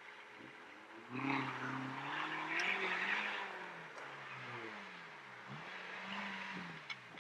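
Off-road 4x4 engine revving in several swells, its pitch rising and falling, with a hiss over it that is loudest in the first few seconds. A couple of sharp clicks near the end.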